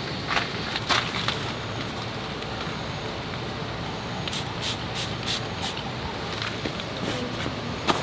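Steady rain on the shelter, with a pump spray bottle of mosquito repellent squirted about five times in quick succession around the middle.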